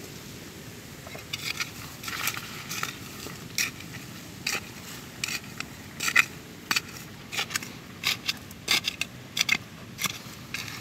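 A small metal hand trowel stabbing and scraping into dry, gritty soil in short, irregular strokes, roughly one or two a second.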